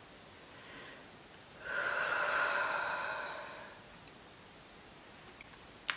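A woman breathing heavily during an anxiety attack: a faint breath about a second in, then a long, louder breath out of about two seconds that fades away.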